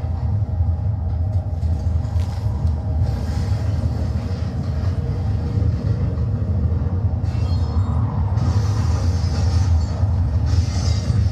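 Deep, steady rumbling drone played as a stage sound effect, with a hissing, rushing noise swelling over it in the second half.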